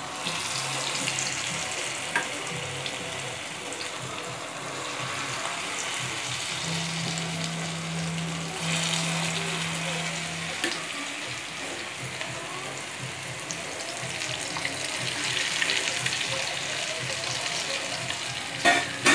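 Marinated chicken pieces deep-frying in hot sesame oil, a steady sizzle and bubbling that rises as another piece is slid in from a spoon at the start. A couple of sharp knocks near the end.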